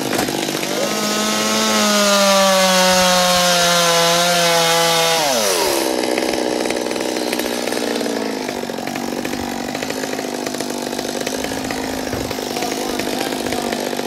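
Chainsaw running at full throttle, cutting poplar, its pitch sinking slowly. About five seconds in the throttle is let off, and it drops to a lower steady idle.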